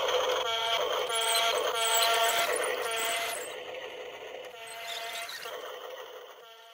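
Repeated electronic tones held on one pitch, coming in short spells with a hiss between them, fading out toward the end.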